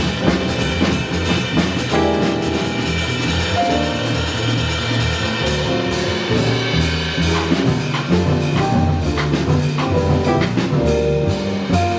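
Live small jazz band playing an up-tempo tune: drum kit with busy cymbal work, bass walking underneath, piano and horn lines on top.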